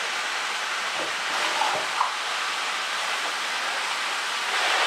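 Onions, mushrooms, zucchini and tomatoes sizzling in a non-stick frying pan: a steady hiss, with a few faint clicks between one and two seconds in. The onions are starting to stick a little because they have not been stirred.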